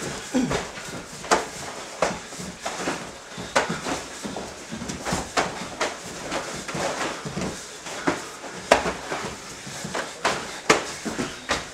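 Irregular thuds and slaps of full-contact karate sparring: punches and kicks landing on the body through the gi, roughly one or two a second, with bare feet shuffling on the mat.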